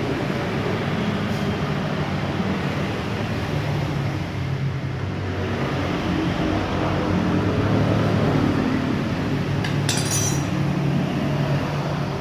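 A steady low rumble with one short metallic clink about ten seconds in.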